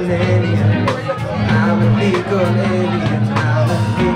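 Live rock band playing: electric bass guitar, electric guitar and drum kit, with a steady drum beat and a prominent bass line.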